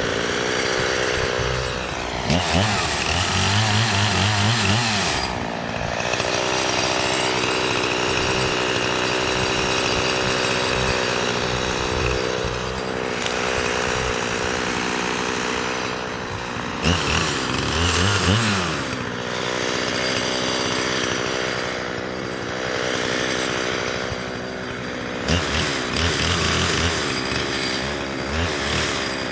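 Chainsaw running, its engine pitch swinging up and down in three spells as it is worked through wood.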